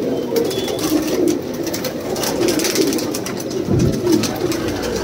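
Many caged domestic pigeons cooing at once, a dense steady chorus, with scattered light clicks and scuffles among the birds.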